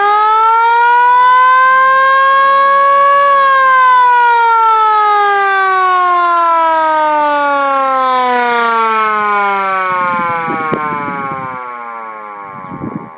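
Sycomac VS12 electric air raid siren, rated for 24 volts but run off a 12-volt battery, winding up to a peak wail about three seconds in and then winding down in a long, slowly falling wail. Some rattling sounds near the end as it slows.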